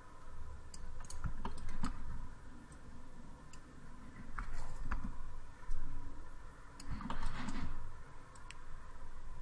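Irregular clicks of a computer mouse and keyboard, a few at a time, over a faint steady hum.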